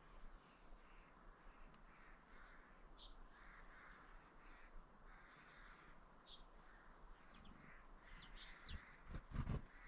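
Faint bird calls: repeated hoarse calls with scattered short, high chirps. Near the end comes a brief low thump, the loudest sound here.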